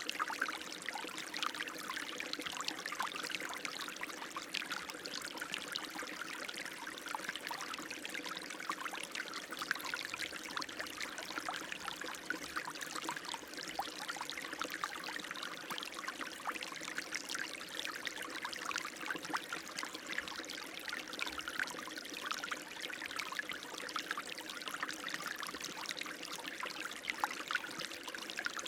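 Running water, a steady unbroken splashing and trickling.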